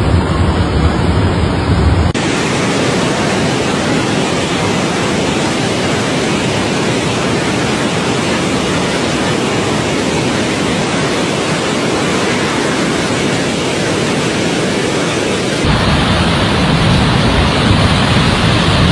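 Rushing water of a river in flash flood, a loud steady rush. The sound changes abruptly about two seconds in and again a few seconds before the end, where different clips of the torrent are joined.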